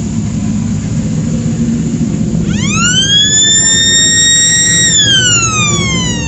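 A high-pitched mechanical whine that spins up quickly about two and a half seconds in, holds a steady pitch for about two seconds, then winds down slowly, like something coasting to a stop. Under it runs a steady low rumble of engines.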